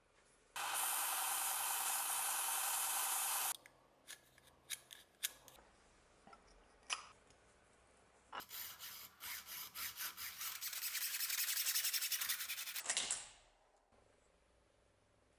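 A bench belt-and-disc sander runs for about three seconds with a steady whirr and low hum, cutting on and off abruptly. A few light clicks follow. From about eight seconds in, a hacksaw cuts through a brass tube held in a vice, its strokes getting quicker and louder until the cut ends.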